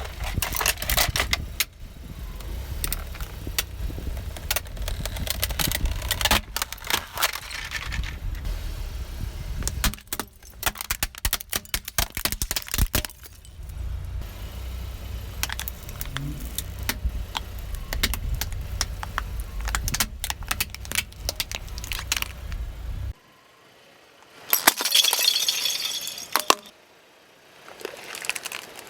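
A car's tyres roll slowly over crunchy objects, crushing them with many sharp cracks and crackles over the low rumble of the car. The rumble cuts off suddenly about two-thirds of the way in. A dense burst of crackling follows, then more cracks near the end.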